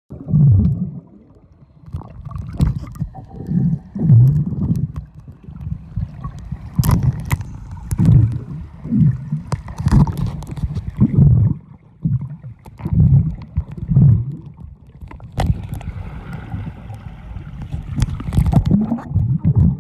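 Water heard through a camera held under the surface of a swimming pool: muffled low surges and gurgling about once a second, with a few sharp knocks.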